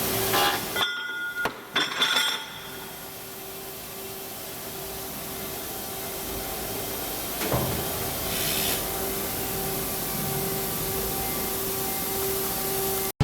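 EVERISING P-230B circular sawing machine for metal running with a steady hum, with several clanks and knocks in the first couple of seconds, another knock about halfway through and a short hiss just after it.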